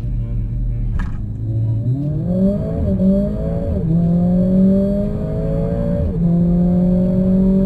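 Mercedes-AMG A45 S's turbocharged 2.0-litre four-cylinder launching on launch control, heard inside the cabin. The engine holds steady revs, then climbs hard after release, with two quick upshifts of the dual-clutch gearbox about four and six seconds in.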